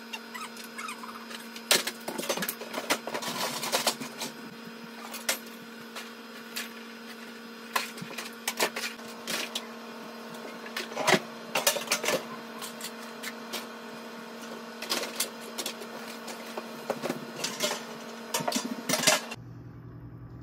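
Plastic toys clattering and knocking as they are handled and put away, in irregular clicks and thumps over a steady low electrical hum.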